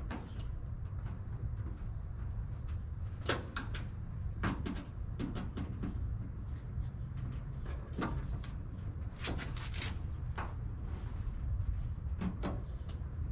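Scattered small clicks and knocks, a few in quick runs, from hand work fastening a bug shield to a pickup's hood with screws and plastic washers. A steady low rumble runs underneath.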